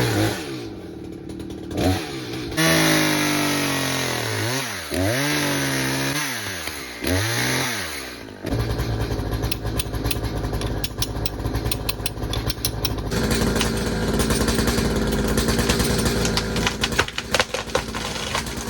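Chainsaw cutting through the birch stem, its engine revving up and dropping back several times. About eight seconds in, it gives way to a dense, steady rattling noise that lasts to the end.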